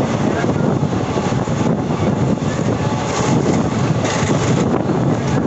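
Passenger train running at speed, heard from aboard the coach: a steady, loud rush of wheels on track with wind buffeting the microphone.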